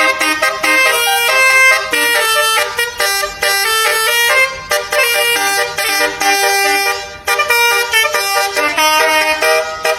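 Telolet basuri horn, a multi-note bus air horn, playing a melody. The notes change in quick steps, with several horn tones sounding together in chords.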